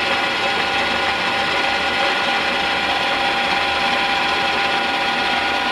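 E1N metal lathe, converted to CNC, running with its chuck spinning: a steady mechanical whir of the spindle and gearing with several steady whining tones.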